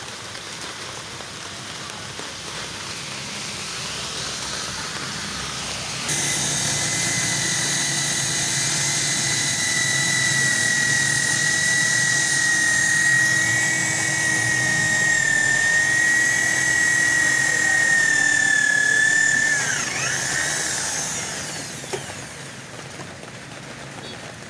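Corded electric drill running at speed, drilling into a metal frame. It starts suddenly about six seconds in with a steady high whine, then winds down with falling pitch about two-thirds of the way through.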